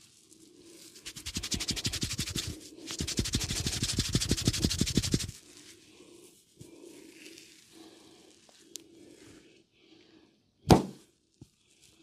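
Rapid, rhythmic hand strokes on a person's oiled head and hair during a barber's head massage, about a dozen a second, in two runs of a couple of seconds each. Near the end comes a single loud, sharp sound.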